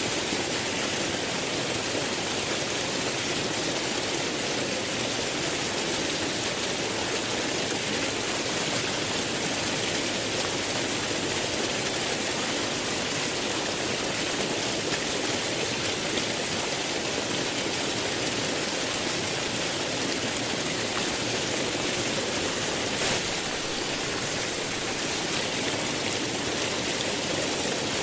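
Flowing water rushing steadily, an even, unbroken hiss.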